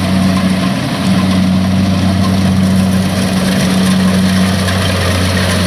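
Kubota DC-70 combine harvester's diesel engine running steadily with a constant low hum, working in deep boggy mud where the machine turns only with great difficulty.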